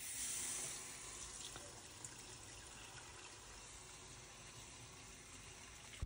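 Faint, steady hiss of water draining out of a Worcester Bosch 30i combi boiler through a hose on its drain point, as the boiler is drained down. It is louder for the first second, then settles lower.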